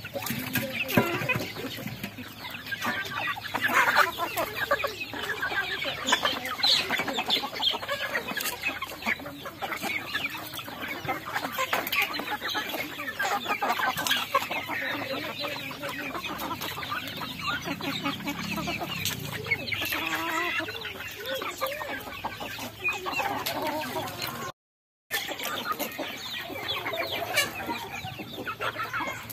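A large flock of chickens clucking without pause as they feed, with many short clicks among the calls. The sound drops out for a moment near the end.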